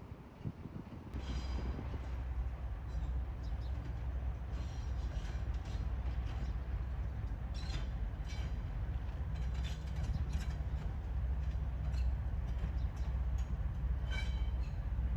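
Diesel locomotive-hauled train on the move: a steady low engine drone starts abruptly about a second in, with short high wheel squeals and clicks over it.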